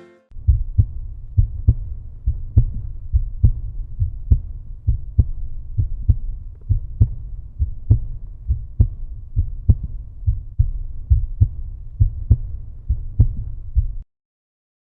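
Low, heartbeat-like thudding beat in the closing soundtrack, a double thud a little under once a second. It cuts off abruptly near the end.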